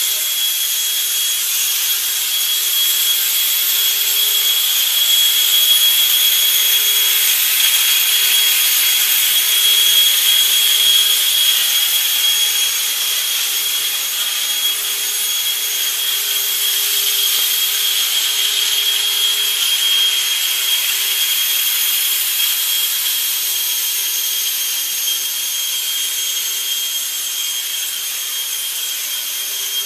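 Electric suction fan of a small homemade remote-control wall-climbing car running steadily, a high-pitched whine over rushing air, its suction holding the car to the ceiling. Slightly louder in the first third, then a little softer.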